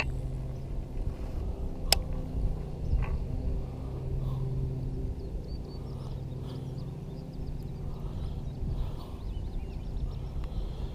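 Steady low hum from a motor, with a sharp knock at the start and another about two seconds in, and faint high chirps in the middle.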